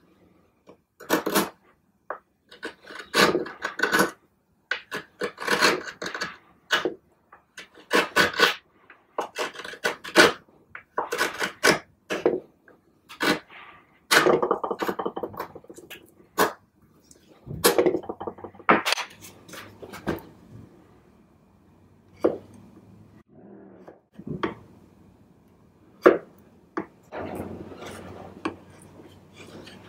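Small hand plane taking short, rasping shaving strokes across a broken wooden chair leg to flatten it, about one stroke a second. In the last several seconds, a few sharp clicks and scrapes of a chisel paring the wood.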